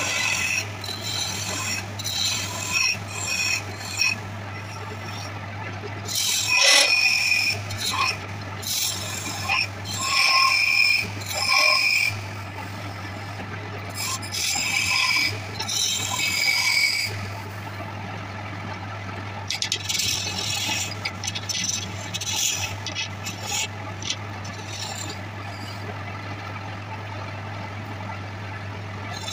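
Wood lathe running with a steady low hum while a hand-held steel turning tool scrapes at the spinning wooden goblet blank in repeated cutting strokes. The cutting stops near the end, leaving only the lathe's hum.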